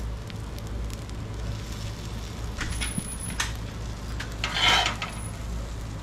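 Spatulas scraping and turning egg fried rice on a hot griddle, a few short scrapes from about two and a half seconds in, the loudest near the end, over a steady low hum.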